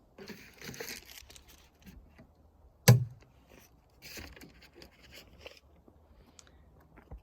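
Crunching footsteps in snow, in two short runs, with one sharp knock about three seconds in that is the loudest sound.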